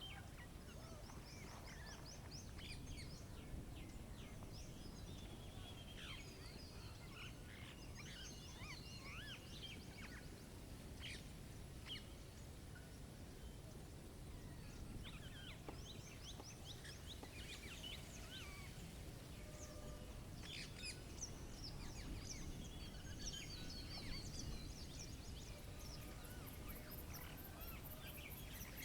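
Small songbirds at a feeder chirping and calling, with quick chirps and short rapid trills scattered throughout, over a steady low rush of wind.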